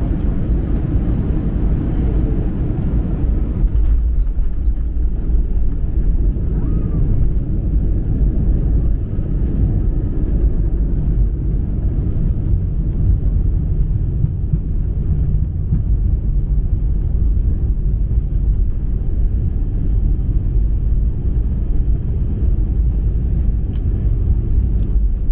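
Airbus A320 rolling on the ground after landing, heard inside the cabin: a steady, loud low rumble of engines and wheels, a little fuller for the first four seconds or so.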